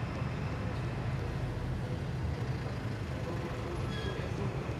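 Steady low rumble of background machinery noise, even throughout.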